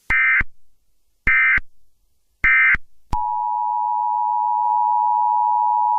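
Emergency Alert System signalling: three short screeching digital SAME data bursts about a second apart, then the steady two-tone EAS attention signal sounding from about three seconds in.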